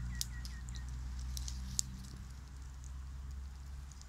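Small open wood fire crackling, with a few sharp isolated pops over a low steady rumble. A quick run of short high chirps sounds at the very start.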